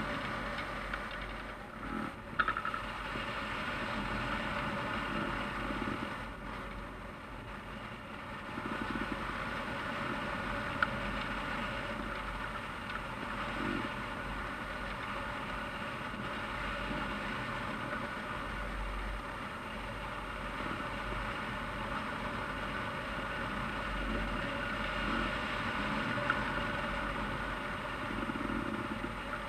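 Steady rush of wind over a camera mounted on a hang glider in flight, with a low rumble and a couple of brief knocks.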